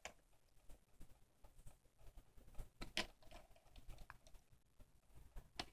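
Near silence broken by faint scattered clicks and taps, a few a little louder about three seconds in: small plastic toy figures being handled and set down on a table.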